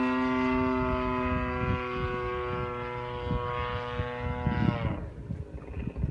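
The 30cc gasoline engine and propeller of a radio-controlled aerobatic airplane running steadily at high throttle, then dropping sharply in pitch about four and a half seconds in as the throttle is pulled back to a low idle. Wind buffets the microphone in gusts.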